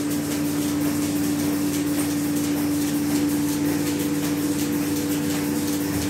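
Milking machine running in a milking parlour: a steady mechanical hum from the vacuum system, with faint, evenly repeated clicks above it.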